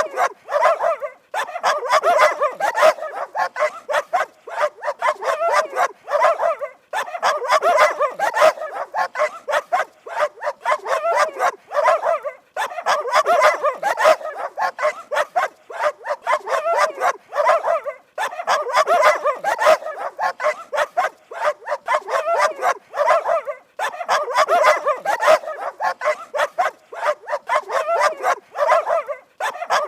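Dog barking rapidly and continuously, in long runs of quick barks broken by brief pauses about every five or six seconds.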